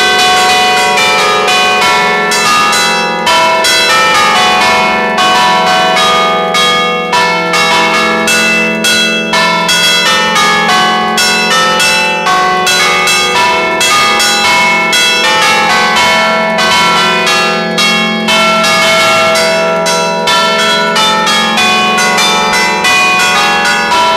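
Electrically rung church tower bells heard up close in the belfry: several bells struck in quick, uneven succession, their ringing tones overlapping over a steady low hum.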